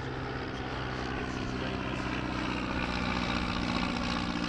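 De Havilland DH.51 biplane's piston engine and propeller droning steadily as it flies past, growing slightly louder.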